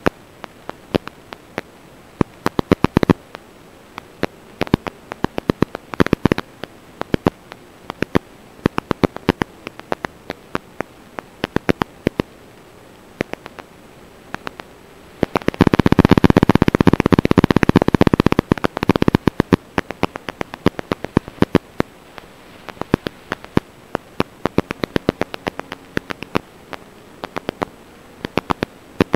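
Irregular crackling static: sharp clicks scattered throughout over a steady hiss, thickening into a dense, louder burst of crackle for about three and a half seconds just past the middle.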